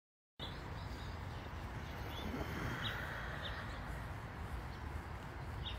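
Outdoor background hiss with a few faint, short bird chirps scattered through it. The sound cuts out completely for a moment at the very start.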